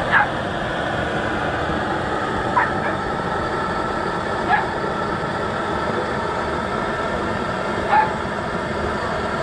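A dog yelping four times at uneven intervals, each yelp short and falling in pitch, over a steady rushing background noise.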